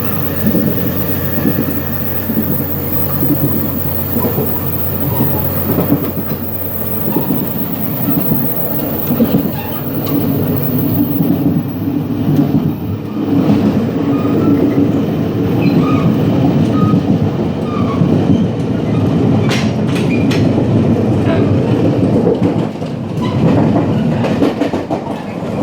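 Gangway between carriages of a Taiwan Railways DR3100 diesel multiple unit under way: a steady loud rumble and rattle of the running train, with a few sharp clicks and knocks in the second half.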